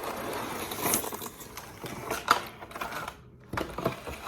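A slime kit's packaging being opened by hand: a burst of rustling, then scattered clicks and taps of plastic pieces being handled, with one sharp click about two seconds in.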